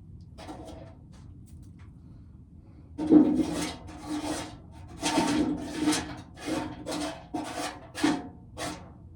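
Dried corn being shelled: faint scraping at first, then, about three seconds in, a run of loud rasping strokes, a little over one a second, as kernels are rubbed off the cob.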